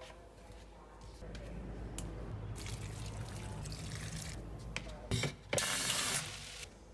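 Water poured from a glass jug onto the soil of potted plants. Near the end a kitchen tap runs briefly into the glass jug.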